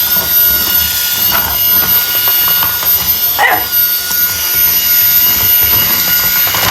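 Vacuum cleaner running steadily, its motor whine wavering in pitch, while a French bulldog barks at it a couple of times, loudest about three and a half seconds in.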